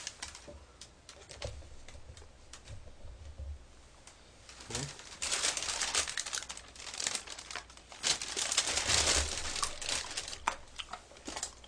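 Close-up crinkling and crackling from fried chicken and its plastic packaging being handled and eaten: faint scattered clicks at first, then louder stretches of crackling about five seconds in and again around eight seconds in.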